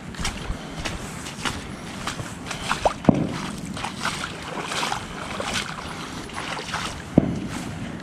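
Footsteps squelching and splashing through mud and standing water, with two heavier thumps about three seconds in and near the end.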